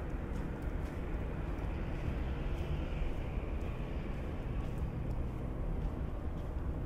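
Steady low rumble of urban background noise, with faint, irregular footsteps on a snowy path.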